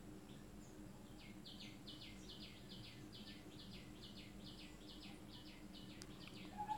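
Faint background bird chirping: a run of short chirps, each falling in pitch, about four a second, over a low steady hum.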